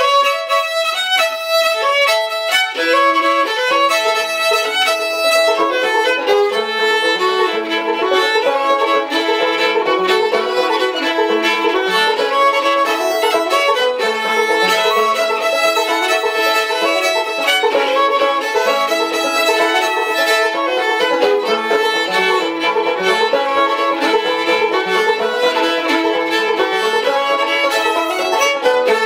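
A fiddle and a clawhammer-style banjo playing an old-time tune together, the bowed fiddle melody over the banjo's steady rhythmic picking.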